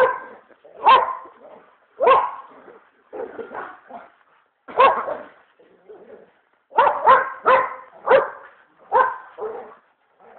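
A dog barking repeatedly: about a dozen loud barks at uneven spacing, with a quick run of four or five together about two-thirds of the way through.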